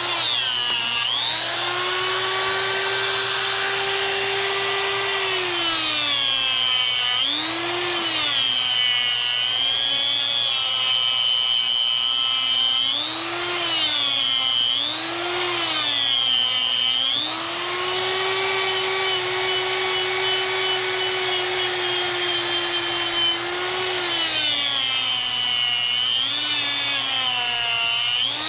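Harbor Freight Hercules 1/4-inch electric die grinder running, carving wood: its motor whine sags in pitch each time the bit is pressed into the wood and swings back up as it is eased off, over and over, with two longer steady stretches.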